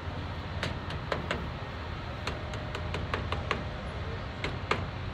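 Wind buffeting the phone's microphone as a steady low rumble, with a scattering of short clicks and taps over it.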